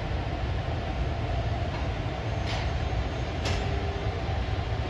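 JR Freight EF210 electric locomotive running light at walking pace, a steady low rumble. Two short sharp sounds come about two and a half and three and a half seconds in, and a steady hum sets in with the second.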